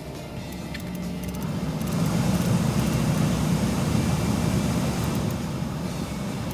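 Car noise that swells over a couple of seconds, holds, and then fades.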